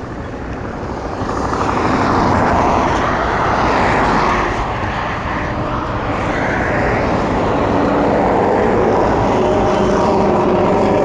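Highway traffic going by close at hand: a steady rush of tyre and engine noise from passing cars and trucks that swells after about a second and a half and stays loud.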